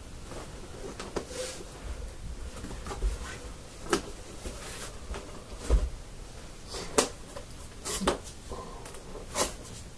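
Packaging being handled during an unboxing: a scattering of short knocks and clicks at irregular moments, with a few low bumps.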